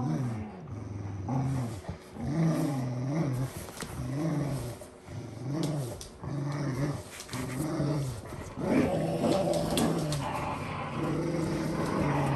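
Rottweilers growling in play while tugging on a rope toy: a run of low growls that rise and fall, about one a second, getting rougher and louder about two-thirds of the way through.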